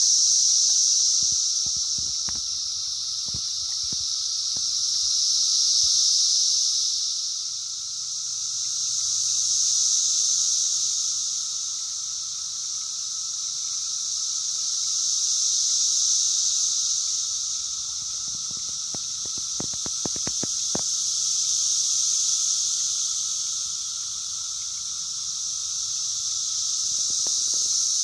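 Chorus of 17-year periodical cicadas, very loud: a high, shrill buzzing that swells and fades in slow waves about every five or six seconds, over a lower, steadier drone.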